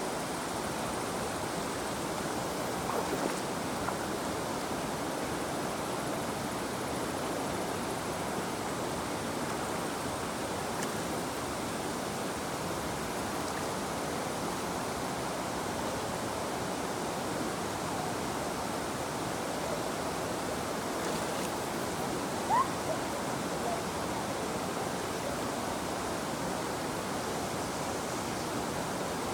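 River water flowing steadily, with a couple of brief louder sounds, the sharpest about 22 seconds in.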